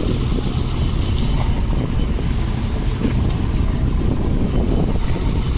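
Fishing boat's diesel engine running steadily as a low rumble, with wind and sea noise over it.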